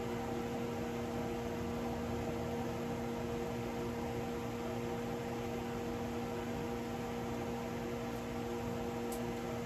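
Steady electrical hum with an even hiss underneath: a kitchen range hood fan running over a lit gas stove burner.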